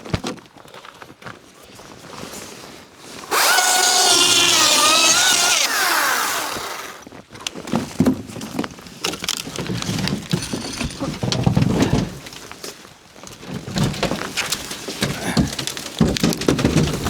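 Power drill running for about two seconds with its pitch wavering, then spinning down. Irregular knocks and clatter follow.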